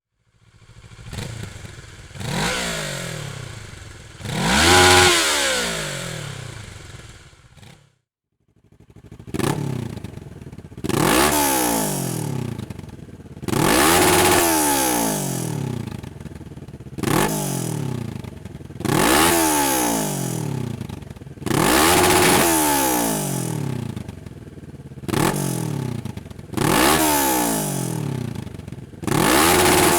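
Kawasaki ER-6n's parallel-twin engine, breathing through a Dominator aftermarket exhaust, revved hard again and again. There are a few slower climbs in the first stretch, the longest peaking about five seconds in. After a short break the revs come as about eight quick blips, each snapping up in pitch and falling back to idle.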